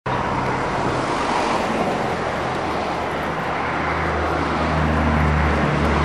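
Road traffic noise: a motor vehicle's engine drone over a steady wash of traffic sound, growing louder over the last couple of seconds.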